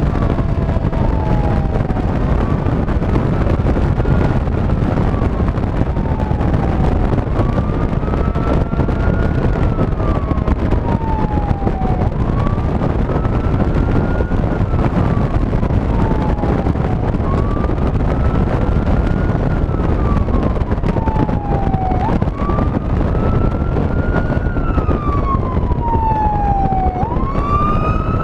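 Fire engine siren wailing, its pitch rising and falling about every five seconds and growing louder near the end, over steady wind and road rumble at a microphone mounted on the outside of the moving truck.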